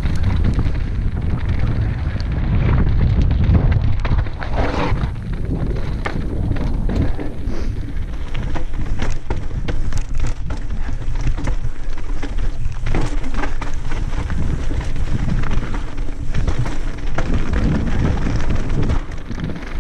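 Wind buffeting the helmet camera's microphone in a deep, steady rumble while a Commencal Meta SX mountain bike rides down a loose rocky trail, its tyres crunching over stones and the bike rattling in frequent sharp clicks and knocks.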